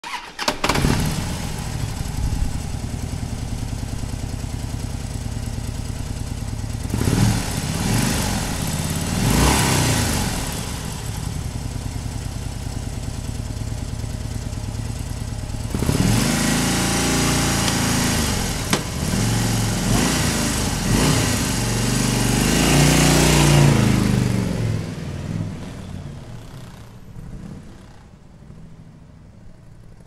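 Motorcycle engine started, idling with three quick blips of the throttle, then pulling away through several gears, each pull rising in pitch and dropping at the shift, and fading into the distance near the end.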